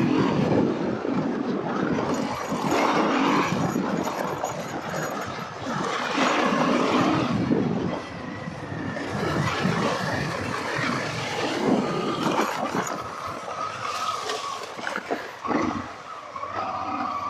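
Honda XL650V Transalp's 650 cc V-twin engine running as the bike rides a muddy dirt track, heard under heavy wind and tyre noise that swells and dips over the ride. Near the end it turns quieter and steadier.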